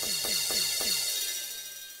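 Roland TD-8 electronic drum module sounding a fast tom roll, about six strokes a second, each hit dropping in pitch, over a ringing cymbal. The roll stops about a second in and the cymbal fades out.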